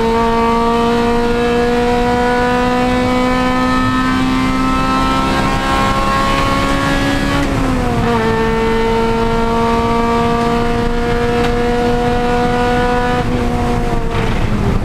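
Honda Civic Si race car engine pulling hard in a high gear, its note climbing slowly, with a quick upshift about halfway through. Near the end the engine note drops and breaks up as the car comes off the throttle.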